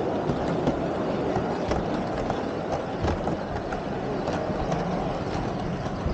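G scale model train running past close by, its wheels clicking irregularly on the track, over a steady background murmur.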